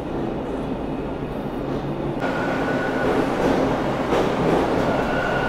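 TTC subway train pulling into an underground station and rolling past the platform, growing louder as it comes alongside. A steady whine and a rise in hiss join the rumble about two seconds in.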